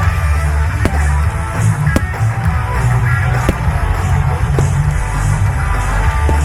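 Rock-style music with guitar and a heavy bass line, with a few short, sharp cracks cutting through it.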